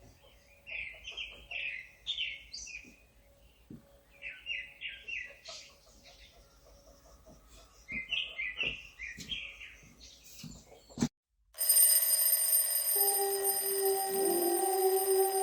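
Small birds chirping in three short bouts, with faint clicks and rustling. After a brief break, an alarm starts ringing loudly and steadily, and a lower tone joins about a second later, wavering and dipping in pitch.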